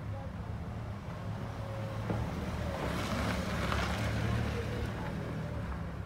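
Low steady engine hum, with a passing vehicle's rush swelling louder about three seconds in and fading by about five seconds.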